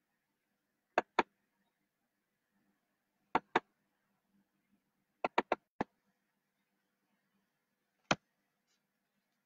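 Nine sharp, short clicks with near quiet between: two pairs, a quick run of four about five seconds in, then a single click near the end.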